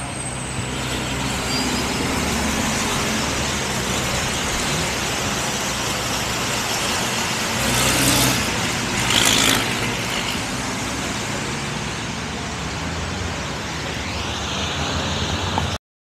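Racing trucks' diesel engines running steadily as a line of trucks drives past on the track, with two brief loud rushes of hiss about eight and nine seconds in. The sound cuts off suddenly just before the end.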